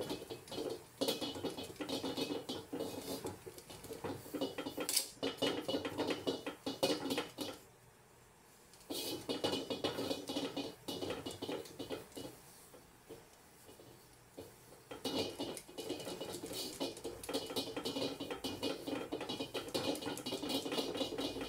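Metal tongs and a paper towel rubbing and scraping rapidly around the inside of a hot carbon steel wok during seasoning, with two quieter pauses partway through.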